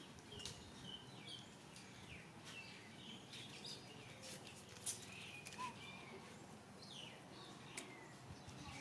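Faint, high, short chirps and squeaks, many of them scattered throughout, with a few soft clicks.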